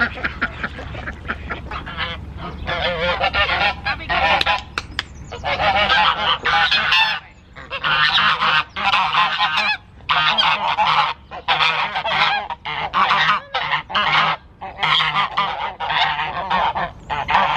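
A small flock of domestic geese honking over and over in close runs, with a few short pauses between bursts.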